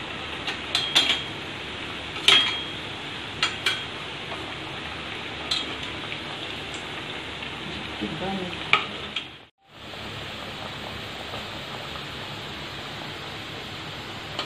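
Stuffed dough potli bundles deep-frying in hot oil in a stainless steel pot, a steady sizzle, with metal utensils clinking against the pot several times in the first few seconds and again near the middle. The sound cuts out briefly a little after halfway, then the sizzle carries on.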